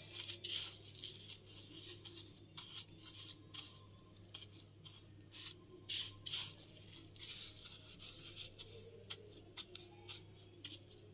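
Crushed dry vermicelli rustling and crackling in irregular small clicks as a batter-coated potato nugget is rolled through it by hand.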